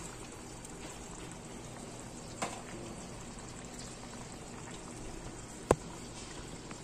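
Sauce simmering in a stainless steel wok, a steady bubbling, with a small tick about two and a half seconds in and one sharp click a little before the end.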